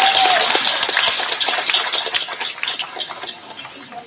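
Crowd applauding, the clapping thinning out and fading away over a few seconds, with a cheer just at the start.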